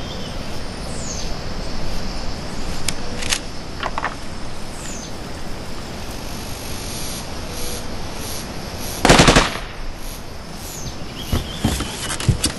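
Steady outdoor background noise with a few short, high, falling bird chirps. One loud, sharp crack comes about nine seconds in. Dull thuds near the end come as the wooden coffins are set down on the ground.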